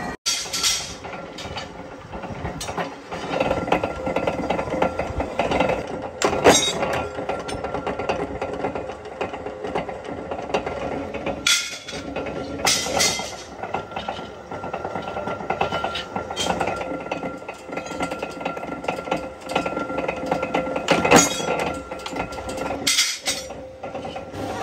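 Metal workshop clatter: irregular clanks and knocks of steel over a steady machine hum.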